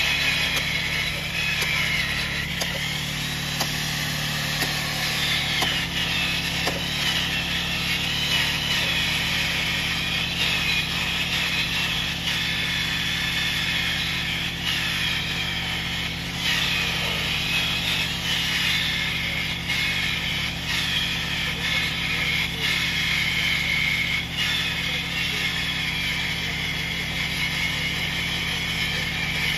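Rail weld grinder running steadily, its grinding wheel grinding a fresh thermite weld flush with the steel rail head. A steady low hum sits under a high, wavering grinding screech.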